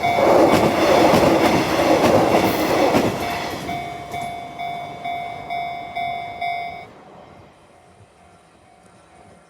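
A train passes over a Japanese level crossing, loudest for the first three seconds and then fading, while the crossing's electronic warning bell dings steadily about one and a half times a second. The bell stops abruptly about seven seconds in, once the train has cleared.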